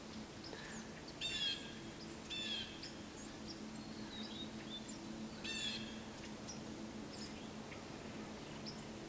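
A bird calling in bare woods: three short high calls about a second and a half, then three seconds apart, with a few faint chirps between them. A faint steady low hum runs underneath.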